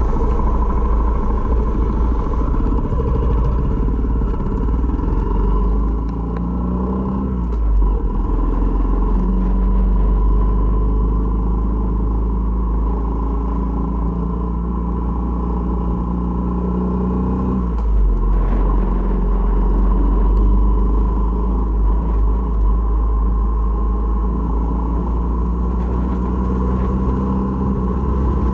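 Honda MSX125's single-cylinder engine running under way, with heavy wind rumble on the helmet-camera microphone. The engine pitch climbs and then drops back twice, about seven and eighteen seconds in.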